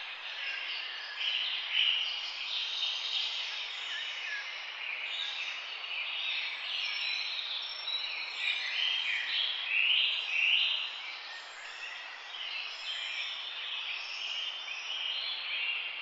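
A dense chorus of many birds chirping and twittering at once, a continuous overlapping chatter with no single call standing out.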